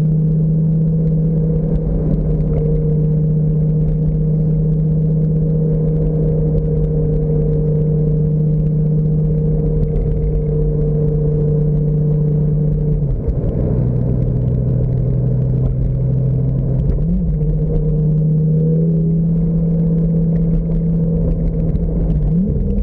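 Lamborghini engine running steadily while cruising, heard from the open-top cabin over a low rumble. Its note drops about halfway through, then rises briefly twice near the end.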